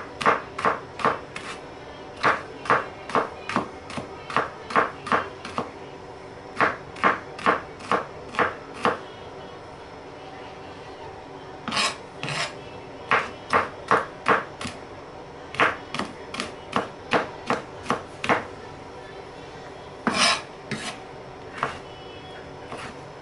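Chef's knife dicing a green bell pepper on a wooden cutting board: sharp, even chops about two to three a second, in runs with a couple of short pauses.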